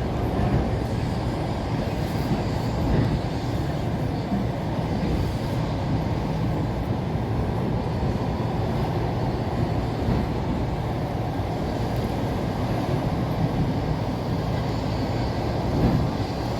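Passenger train running along the rails, heard from inside the carriage: a steady, even rumble of wheels and running gear.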